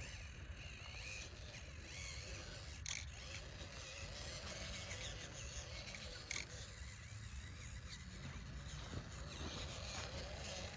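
Small electric motor and gears of a radio-controlled car whining faintly as it drives, the pitch wavering with the throttle, with two sharp clicks, about three and six seconds in.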